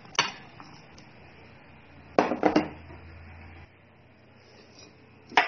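Dishes clinking against a metal mixing bowl as chopped vegetables are tipped off a plate into beaten egg: one sharp clink at the start, a quick cluster of clinks about two seconds in, and another clink near the end.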